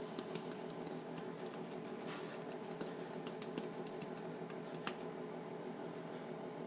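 Badger shaving brush being worked through soap lather: faint wet squishing with scattered light clicks, and one sharper click about five seconds in.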